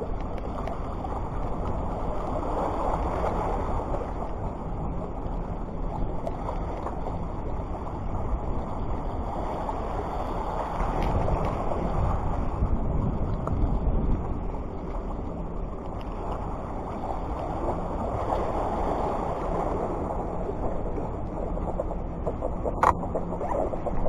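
Steady rumbling wind noise on the microphone mixed with the wash of the sea, with one sharp click near the end.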